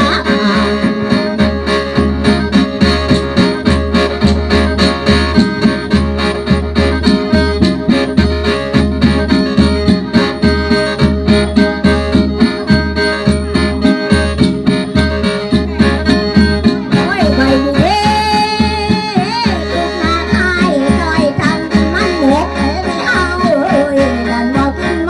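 Traditional Isan spirit-dance music: sustained khaen (bamboo mouth-organ) drone chords over a steady drumbeat with jingling rattles. A voice sings in the second half.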